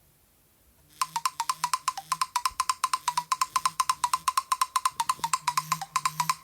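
A Nokia 113 ringtone playing from the phone's small speaker, starting about a second in: a fast, even run of sharp ticks, about ten a second, over a slower repeating low tone.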